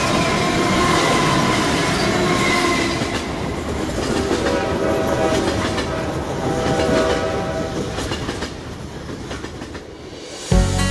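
Train running by with its horn sounding and its wheels clattering over the rails; the sound weakens near the end. Guitar music comes in just before the end.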